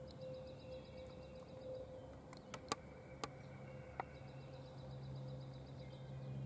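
A small songbird sings a dry, evenly ticking trill twice, a few seconds apart. A few sharp clicks or snaps come in between, over a low steady hum.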